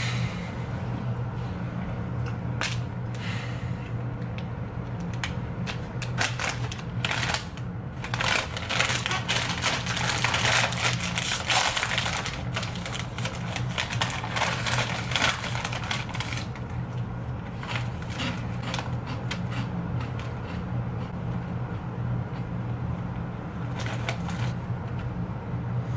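A plastic wrapper crinkling as it is handled, with dense crackling through the middle, over a steady low hum.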